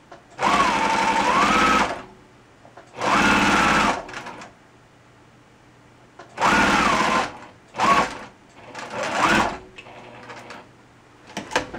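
Domestic electric sewing machine stitching through fabric in about five start-stop spurts, the longest about a second and a half, its motor whine rising and falling in pitch as the speed changes. It is running a slight gathering stitch to ease the longer front piece.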